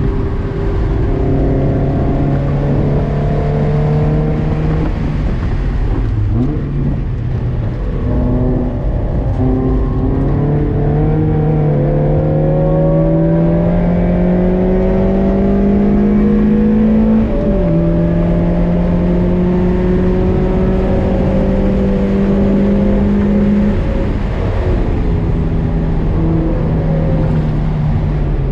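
Toyota MR2 Spyder engine heard from inside the cabin at speed on track, over steady tyre and road noise. The revs climb slowly under acceleration, drop sharply at a gear change about 17 seconds in, hold steady, then fall again as the driver lifts off near the end.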